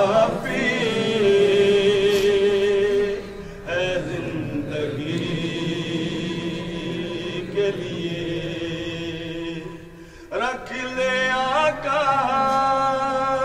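A man chanting a devotional verse in long, drawn-out notes with a wavering pitch. The voice breaks off briefly about ten seconds in, then resumes.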